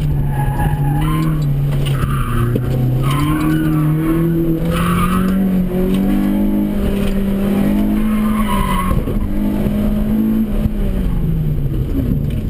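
Acura RSX Type-S's four-cylinder engine revving hard from inside the cabin, its pitch rising and falling with the throttle through the course, with several short tyre squeals as the car is pushed through the corners. Near the end the revs drop as the car slows.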